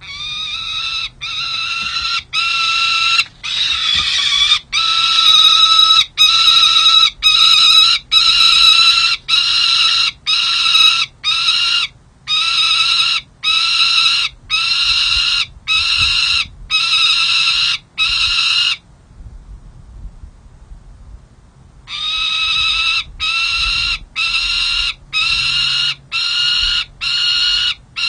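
Juvenile peregrine falcon calling: a long series of harsh, drawn-out calls at about one a second, breaking off for about three seconds some two-thirds of the way through and then starting again.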